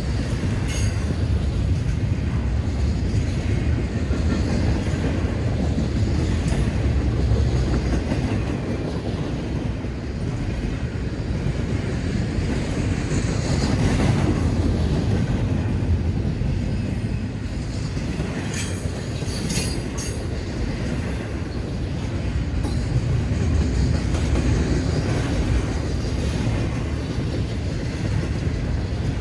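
Freight cars of an autorack and intermodal train rolling past at a grade crossing: a steady low rumble with wheel clatter. Brief sharp squeals or clanks come about halfway through and twice more around two-thirds of the way in.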